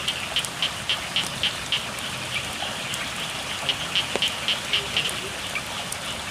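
Steady rain falling, with frogs calling in runs of quick, high, repeated notes, about four a second.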